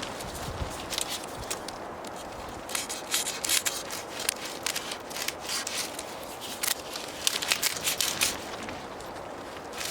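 Tent fabric and a self-adhesive fastening strip being handled and pressed down by hand, giving clusters of crackling clicks about three seconds in and again about seven seconds in, over a steady hiss.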